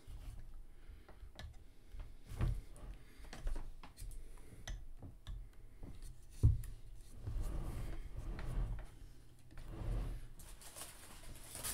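Handling noise from statue parts: scattered small clicks and knocks and soft scraping as a sculpted vine piece is worked into its slot in the statue's base, with one sharper knock about six and a half seconds in.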